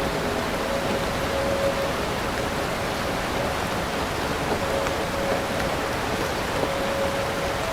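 Steady downpour of rain, an even dense hiss of drops with no let-up.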